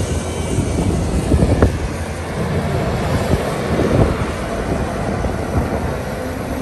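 Steady rushing spray of water washing mud off a toy excavator, with an irregular low spatter underneath.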